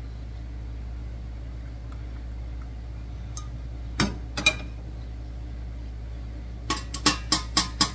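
A metal saucepan set down on a gas stove's grate with two clicks about four seconds in, then from about seven seconds a run of sharp taps, about three a second: a mesh strainer knocked against the rim of an enamel canning pot to empty out strained pineapple. A steady low hum runs underneath.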